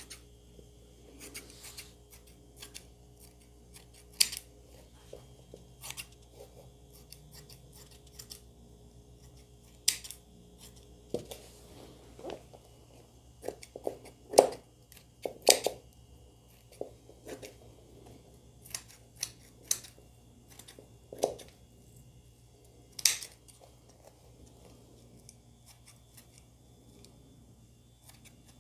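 Scissors snipping irregularly through net fabric, trimming the excess net level with the edge of a taffeta circle skirt.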